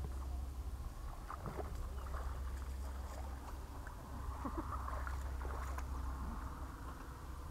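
Wind rumbling on the microphone, with light splashing and small ticks as a hooked white bass is reeled through the shallows and dragged to the bank, the splashing strongest about halfway through.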